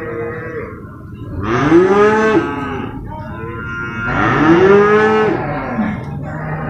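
Water buffalo mooing: two long calls of about a second each that rise and then fall in pitch, a few seconds apart, with a fainter call near the end.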